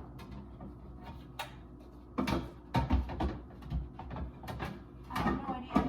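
Irregular clunks and knocks of drinks and containers being moved and set down on refrigerator shelves, about a dozen in all, clustered around the middle and near the end.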